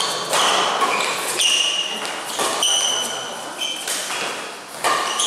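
A badminton rally: rackets striking the shuttlecock with sharp pings about once a second, mixed with short high squeaks of shoes on the court mat, in a reverberant hall.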